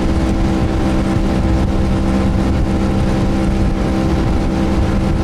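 Boat's outboard motor running at a steady speed: an even engine hum over rushing noise.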